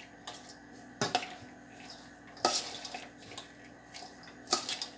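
Metal spoon clinking and scraping against a stainless steel mixing bowl while stirring grated zucchini and carrot filling, with three sharp clinks about a second and a half apart.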